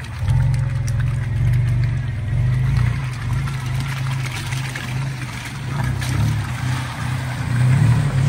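Mitsubishi Montero SUV's engine running at low revs, steady with small rises and falls in level and a swell near the end.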